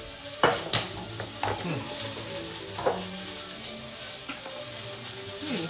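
Food sizzling in a hot frying pan, a steady hiss, with a few sharp clicks in the first three seconds.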